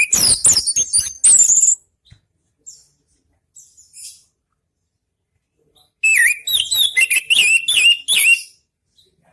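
Orange-headed thrush singing two loud, rapid phrases of varied whistled notes and sharp clicks, about four seconds apart, with a few faint notes between.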